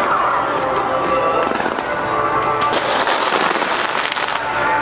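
Ground-launched fireworks going off in quick succession: a dense crackle of sharp pops and bangs that grows thickest in the second half.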